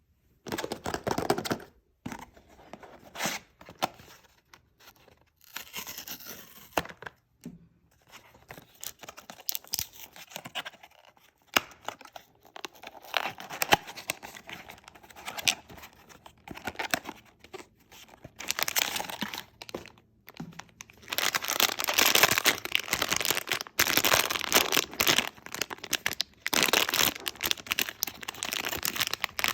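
Blind-box packaging being torn open and handled: tearing and crinkling of the wrapping in irregular bursts, becoming more continuous in the last third.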